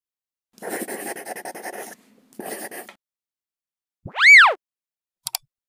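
Channel-intro sound effects: a rattling, rasping noise for over a second and a shorter one after a brief pause, then a loud whistling tone that swoops up and back down, and two quick clicks near the end.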